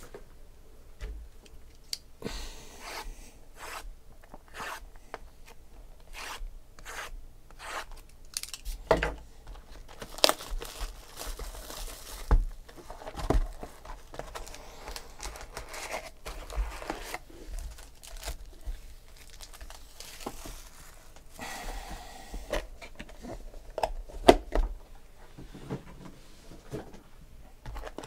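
Plastic wrapping being torn off and crinkled on sealed Panini Contenders Football trading-card boxes, with the cardboard boxes and packs handled. Irregular rustling and tearing, with sharp knocks and clicks.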